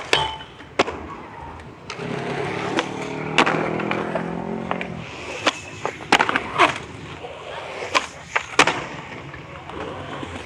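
Skateboards rolling on concrete, with sharp clacks of tails popping and boards landing about ten times. A steady hum runs for about three seconds in the middle.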